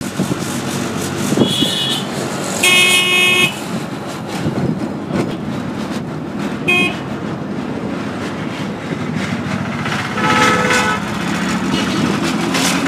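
Autorickshaw engine running under way through city traffic, heard from inside the open cabin, with vehicle horns honking four times: a short toot, then a long, loud blast about three seconds in, a brief toot, and a lower-pitched horn near the end.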